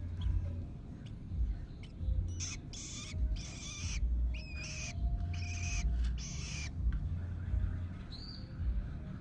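Young long-tailed shrike giving a series of short, hissing begging calls between about two and seven seconds in, with a brief whistled note near the end, over a low rumble on the microphone.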